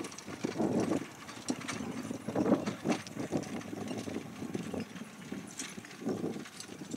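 Hoofbeats of a pair of horses pulling a driving carriage at speed over grass turf, an irregular run of soft knocks.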